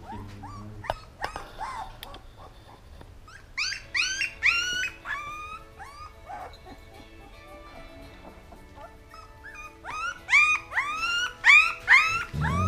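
A 16-day-old husky puppy screaming: a run of high-pitched cries that rise and then hold, one bout about four seconds in and a louder, faster bout near the end.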